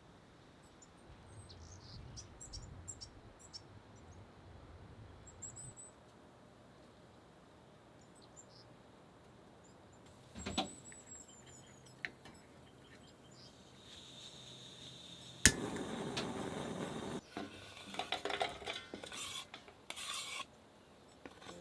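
Camp cookware and utensils being handled, with clinks and clattering in the second half, and faint bird chirps in the first few seconds.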